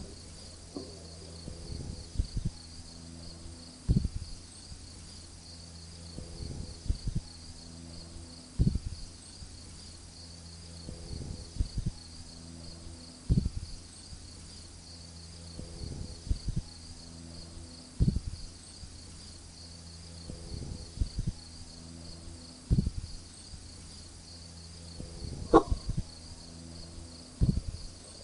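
A steady, high, pulsing chirr like crickets runs throughout. Over it, low thuds recur at regular intervals of about four to five seconds, the sharpest one near the end.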